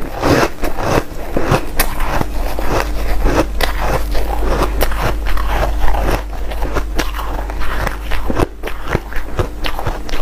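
Hard, frost-coated ice being chewed close to the microphone: a rapid, continuous run of sharp crunches and crackles.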